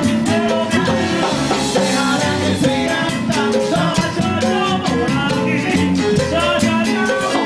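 A Cuban dance band playing salsa: pitched instrument lines over steady, rhythmic percussion.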